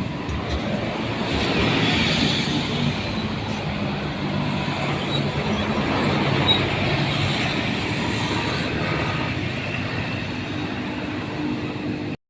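Roadside traffic: a heavy diesel vehicle's engine running as it passes, with steady tyre and road noise.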